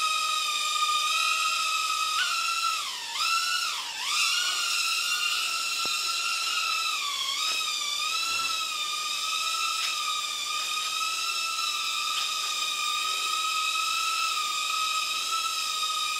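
Cheerson CX-10 nano quadcopter in flight, its four small coreless motors and propellers giving a steady high-pitched whine. The pitch dips sharply twice, about three and four seconds in, and wavers again a few seconds later.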